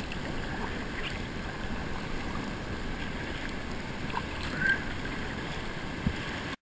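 Steady rush and lapping of river water around a whitewater kayak as it is paddled, with the paddle dipping in. The sound cuts off suddenly near the end.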